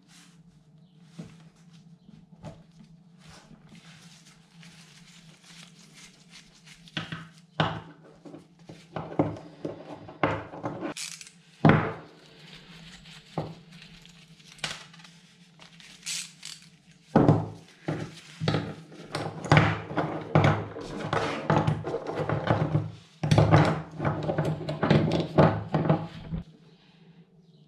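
Metal bicycle V-brake arms, bolts and a small ratchet being handled and set down on a wooden tabletop: scattered clicks, clinks and knocks, coming thick and fast in the second half.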